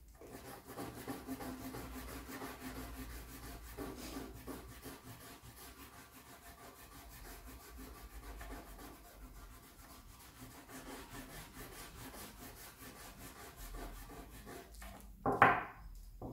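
A bar of fine polishing compound rubbed back and forth along a leather strop, a steady scratchy rubbing as the compound goes onto the leather. A short louder knock near the end.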